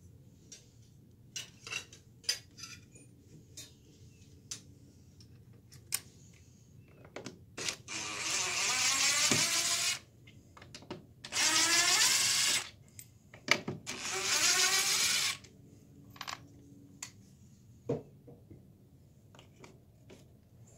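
DeWalt cordless driver backing out the screws that hold down a casement window crank operator. It runs in three bursts of about one and a half to two seconds each, its pitch wavering as the screws turn. Light clicks and taps of handling come before and after.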